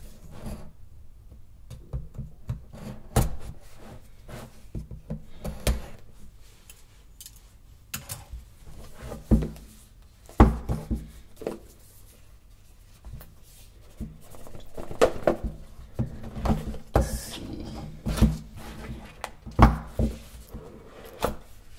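Scissors cutting the seal stickers on a cardboard smartphone box, then hands handling the box and working it open: irregular taps, knocks and cardboard rubbing.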